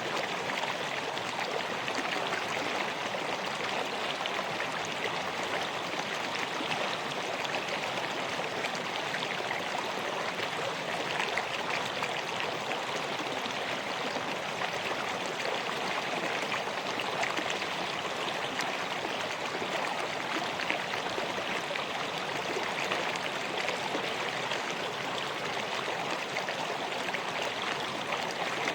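River water flowing over rocks in a steady rushing babble.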